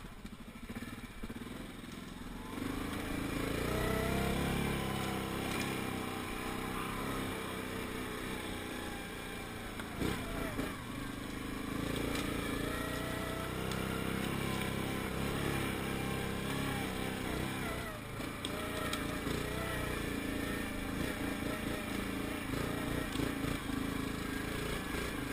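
Yamaha Grizzly 700 ATV's single-cylinder four-stroke engine running under way on a trail, its pitch rising and falling as the throttle is opened and eased. It picks up about three seconds in and briefly eases off around ten and eighteen seconds in.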